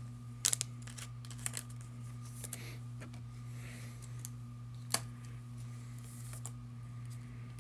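A low, steady electrical hum with a faint higher tone above it. A few light, sharp clicks and taps fall irregularly over the first five seconds.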